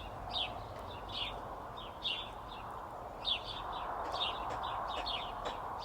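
Small birds chirping, short falling chirps about two or three a second, over a soft steady background hiss.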